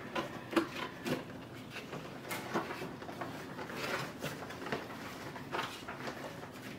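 Cardboard packaging being handled: inner box flaps opened and paper packing pulled out, giving soft rustling with a handful of light knocks and taps.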